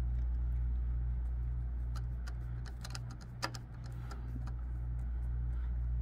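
Steady low machine hum with a regular pulse about three times a second. Over it come a few light clicks of a T30 Torx screwdriver working a heatsink retention screw, the sharpest about three and a half seconds in.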